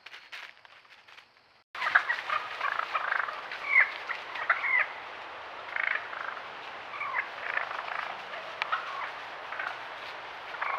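Eastern wild turkeys calling: many short, quick calls over a steady hiss, starting suddenly about two seconds in.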